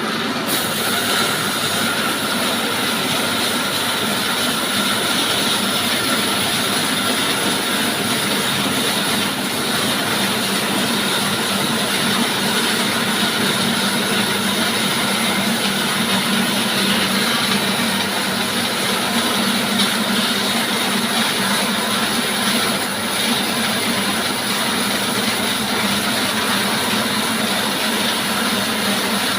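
Sawmill saw running steadily while sawing timber, a loud continuous mechanical noise over a constant low hum, with a brighter, hissier edge starting about half a second in.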